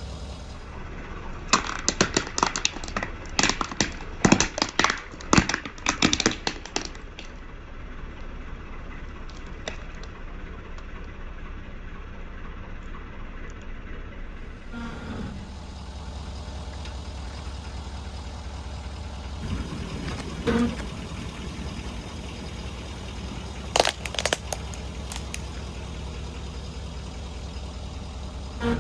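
Brittle objects cracking and crunching under a Ford F-350 Super Duty pickup's tyre, a rapid run of sharp snaps lasting about five seconds, over the low steady sound of the truck's engine. A few dull thuds come later, then another short burst of cracks near the end.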